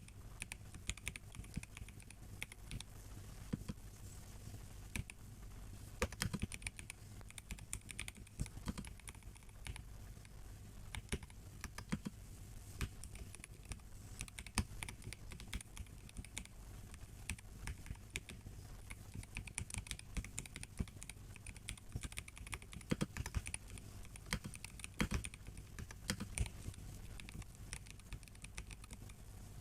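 Continuous typing on a MelGeek Mojo84 mechanical keyboard with plastic case and brown tactile switches: a steady irregular patter of keystroke clicks, with occasional louder strokes.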